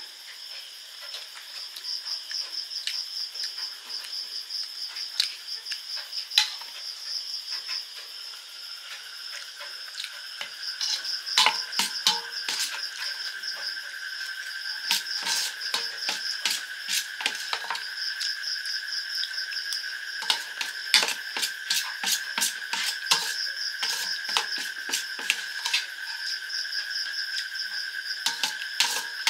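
Spoon clinking and scraping on a stainless steel plate, with crunchy chewing of puffed rice, many sharp clicks from about eleven seconds in. Underneath, insects chirp steadily in a high, pulsing trill, joined about nine seconds in by a lower steady buzz.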